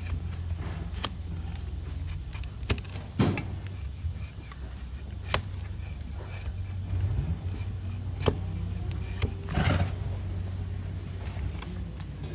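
A flat hoof-paring blade cutting a donkey's hoof horn: irregular sharp cracks and scrapes as slices of horn are pared away, over a steady low hum.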